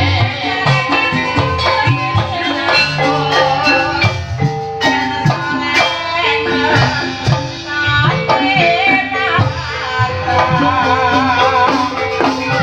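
Javanese ebeg accompaniment music: tuned gamelan percussion playing a stepped melody of held notes over drum strokes, with a wavering melodic line above.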